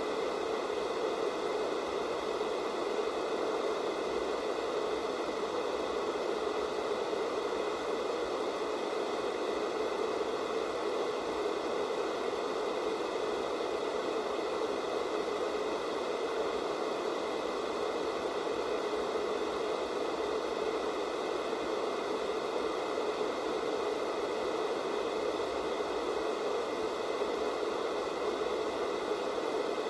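Analog TV static from a no-signal channel: a steady, unbroken hiss, fullest in the lower middle, with a few faint constant whines above it.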